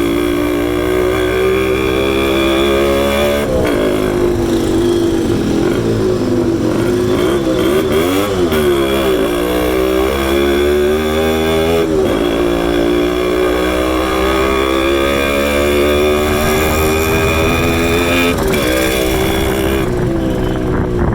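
Yamaha RX200 motorcycle engine running with its air filter removed, idling steadily with its pitch swinging up and down a few times as the throttle is opened and closed.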